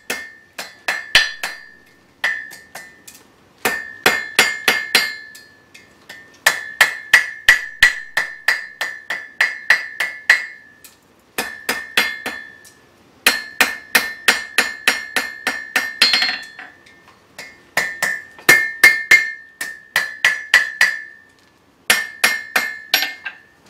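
A hand hammer (about 3 lb) strikes hot iron on a Foster anvil, bending and forging a nail head. The blows come in quick runs of about three a second with short pauses between. Each blow leaves a clear, high anvil ring.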